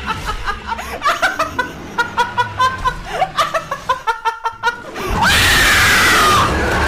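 A young man snickering and laughing in quick bursts. About five seconds in, this gives way to a loud, drawn-out scream.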